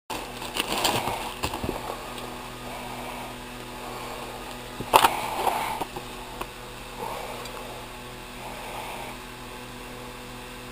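Packaged letter stickers in plastic sleeves rustling and knocking as they are handled and flipped through in a storage bin, over a steady electrical hum. A sharp knock about five seconds in is the loudest sound.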